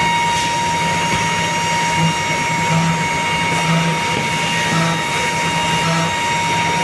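Four-head CNC nesting router running, with a steady whine and short lower hums that come and go.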